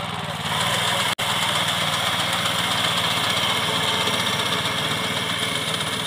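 Walk-behind wheat reaper's small engine running steadily. It gets louder and brighter about half a second in as the machine goes to work, and the sound drops out for an instant just after one second.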